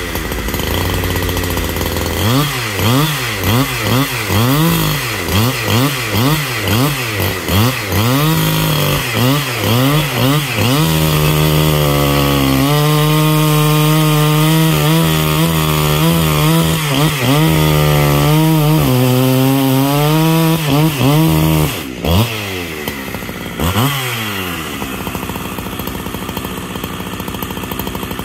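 Husqvarna 365 SP two-stroke chainsaw revving up and down over and over for about ten seconds, then held at high revs while cutting through dry oak for about nine seconds. After two more quick revs it drops back to idle for the last few seconds.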